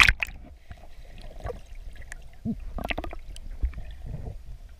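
Muffled underwater sound from a camera held below the surface: a steady low rumble with scattered gurgles and clicks. A splash right at the start as it goes under.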